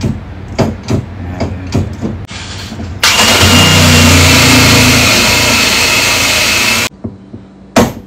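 Cordless drill boring a small access hole through a gun safe's door through a drill guide, to get past a defective keypad lock. The drill starts suddenly about three seconds in, runs for about four seconds and stops abruptly. Sharp knocks and clicks come before it and one more near the end.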